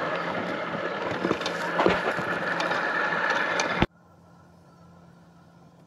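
Hookii Neomow X robotic lawn mower running up close in long grass: a loud, dense whir over a steady low hum, with scattered sharp crackles and clicks. Just before four seconds it cuts suddenly to a robotic mower heard much quieter, a faint steady hum.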